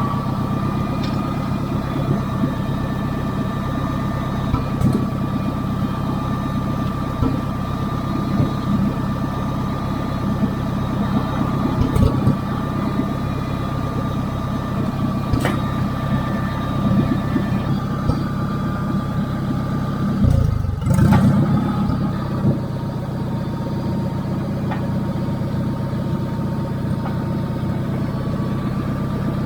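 Engine of a piece of heavy equipment idling steadily, with a few sharp knocks and a brief louder surge about two-thirds of the way through.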